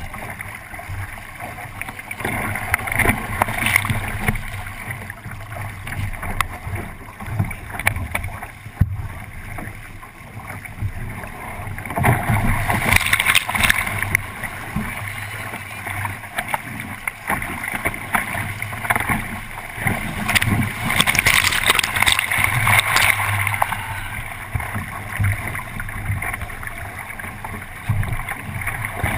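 Water rushing and splashing along the hull of a 29er sailing skiff under way, a steady wash that surges louder with bursts of spray about twelve seconds in and again around twenty seconds in.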